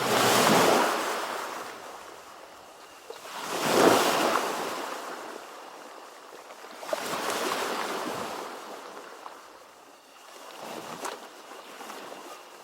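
Ocean surf: four waves wash in about every three to four seconds, each swelling to a rushing hiss and then fading away; the wave about four seconds in is the loudest.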